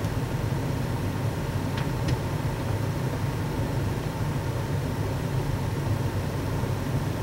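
Steady low mechanical hum with a faint hiss over it, and two faint light clicks about two seconds in.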